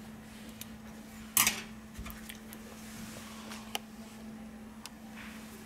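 Small sharp clicks and taps of metal tweezers and fingers handling an HTC A9's circuit board and frame, with one louder clatter about a second and a half in, over a steady low hum.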